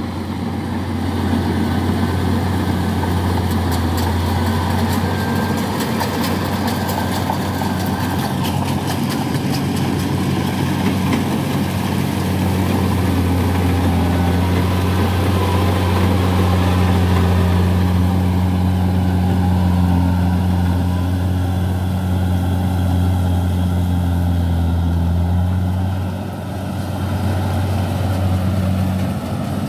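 Kubota DC-70 rice combine harvester's diesel engine running steadily while it cuts rice at close range, with rattling from the machine in the first several seconds. It eases off briefly near the end.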